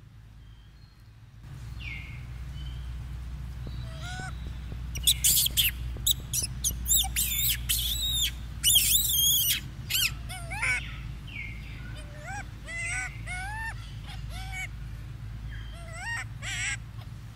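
Young macaque calling: a run of loud, high-pitched screams that sweep up and down, then a series of shorter arched squeals lower in pitch, over a low steady hum.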